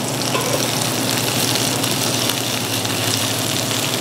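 Sliced red onions sizzling steadily in hot olive oil in a frying pan, stirred with a wooden spatula, over a steady low hum.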